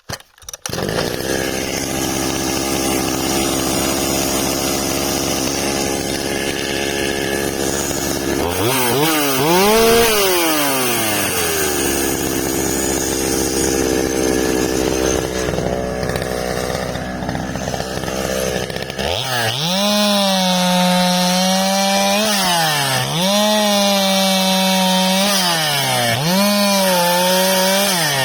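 JoBu LP5BS chainsaw starting up about half a second in and running steadily, revving up once about nine seconds in and falling back. From about nineteen seconds it runs at high revs with its pitch dipping every couple of seconds, as if bogging under load.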